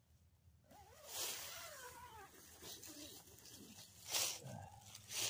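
Faint animal vocalising: a few high, wavering cries that glide up and down in pitch, starting about a second in.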